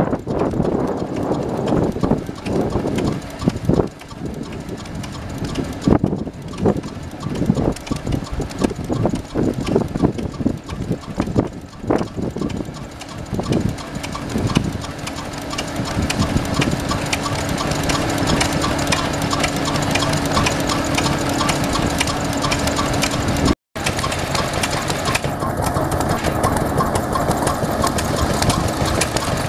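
Vintage stationary engines running with an even, repeating beat, which is clearest in the second half. Irregular knocks and clatter break it up in the first half.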